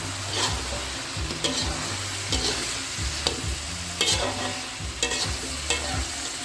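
Chicken frying in sweet soy sauce in a pan with a steady sizzle, while a spatula scrapes and knocks against the pan, stirring every half second to a second.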